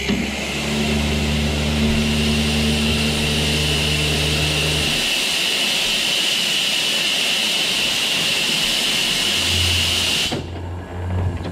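Steam escaping from the narrow-gauge steam locomotive 'Tom Rolt' in a loud, steady hiss that cuts off suddenly near the end. A low hum sounds under it for the first half.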